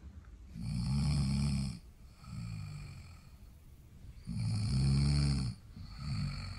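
A dog snoring in its sleep: four long snoring breaths about every second and a half, the first and third the loudest.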